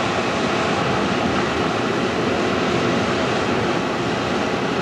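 Hurricane-force wind rushing over the camcorder microphone, a loud steady noise with no break.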